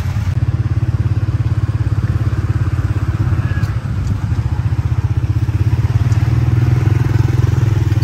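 Tuk-tuk's small motorbike engine running steadily under way, a fast even low pulsing that grows slightly louder in the second half, heard from on board.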